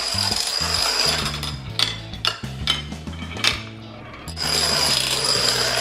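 Plastic toy dominoes toppling in a rapid clattering run, with a few separate clicks and knocks partway through as pieces fall, over background music.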